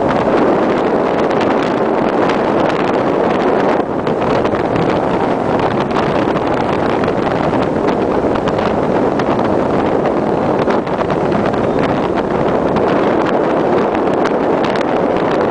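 Wind buffeting the microphone in a steady, loud rush, blended with the sea along the hull of a cargo ship under way.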